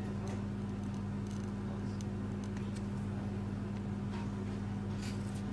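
Steady low hum, with faint scattered clicks and scrapes from a thin metal pry blade working under the glued back glass of a Samsung Galaxy A5 smartphone.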